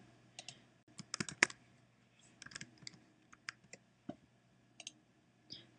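Typing on a computer keyboard: faint, scattered keystroke clicks in irregular clusters.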